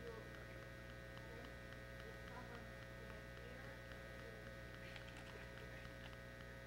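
Faint steady electrical mains hum in the sound system.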